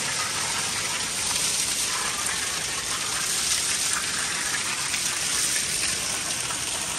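A steady stream of water gushing from a pipe in the wall of a drained swimming pool and splashing onto the tiled floor.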